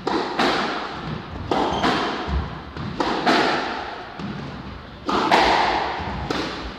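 Squash rally: the ball is struck by rackets and smacks off the court walls, sharp hits every second or so, often in close pairs, each ringing on in the echoing court.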